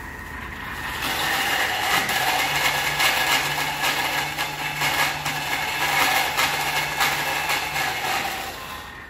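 Thermomix food processor blending at high speed. The motor runs up about a second in, runs steadily with a low hum and a dense whir, with irregular clicks from the contents, and winds down near the end.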